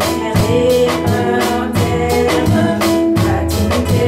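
A woman singing a French hymn into a microphone over live band accompaniment, with held melodic notes and drums keeping a steady beat of about two to three strokes a second.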